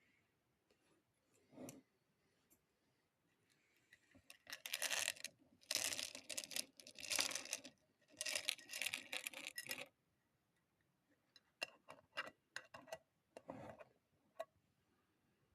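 Close handling noise: three rustling, rattling bursts of a few seconds each, followed by a scatter of small sharp clicks.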